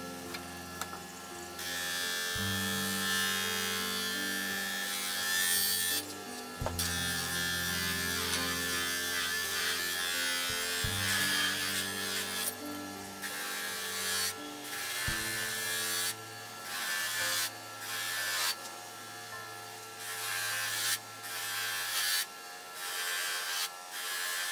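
Bench grinder running with a cloth buffing wheel while an aluminium plate is pressed against it for polishing: a motor buzz with a rough hiss that breaks off briefly several times as the plate comes off the wheel.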